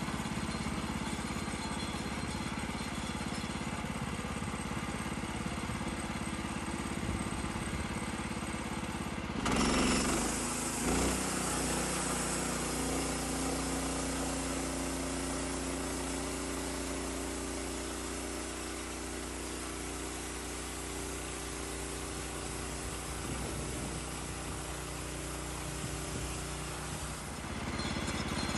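Portable sawmill running as it makes a cut through a log. The engine sound is steady. About nine and a half seconds in it brightens suddenly with a short loud burst, then runs steadily until it drops back near the end.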